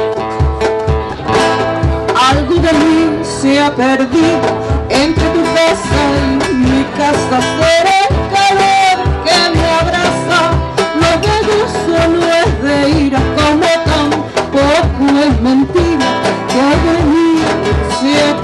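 A woman singing a Latin American song, accompanied by an acoustic guitar plucked in a steady rhythm.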